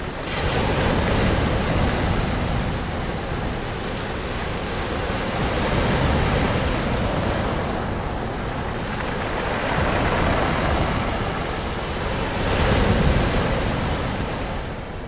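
Ocean waves surging and washing ashore in a steady rush of surf, swelling four times as waves break, then fading out at the very end.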